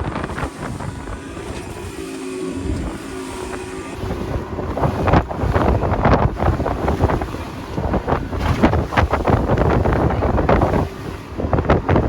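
Wind buffeting the microphone and water rushing and splashing as a small motorboat runs through big storm waves, with the engine running underneath. It grows louder and rougher from about four seconds in.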